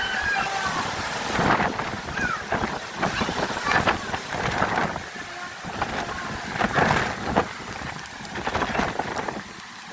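Hurricane wind gusting hard and buffeting the phone's microphone, rising and falling in uneven surges.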